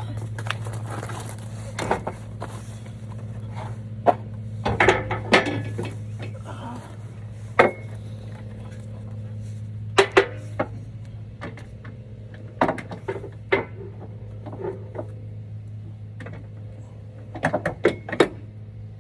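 Irregular metal clinks, knocks and scrapes as a side step rail's hooked mounting brackets are worked onto loosely threaded bolts under a 2019 Ford Ranger's cab, with a steady low hum underneath.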